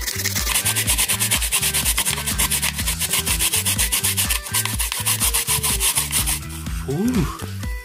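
Daikon radish grated on a plastic grater: quick, even rasping strokes, several a second, that stop about six seconds in.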